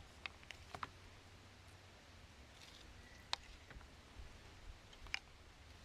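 A few faint, scattered clicks and light taps from cooking utensils and containers, heard over a low steady rumble.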